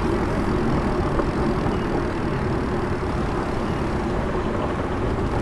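Steady low rumble of city street traffic and road noise heard from a moving bicycle, with no distinct events standing out.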